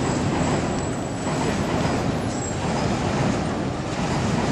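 Steady city street noise at a busy crossing: a constant rumble of traffic.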